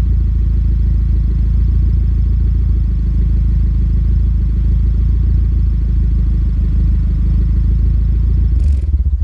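Exhaust note of a Nissan Silvia S15 Spec R's SR20DET turbocharged four-cylinder through a GP Sports EXAS EVO Tune muffler with its inner silencer removed, running steadily with a deep, loud drone. Near the end there is a short click, and the sound drops away.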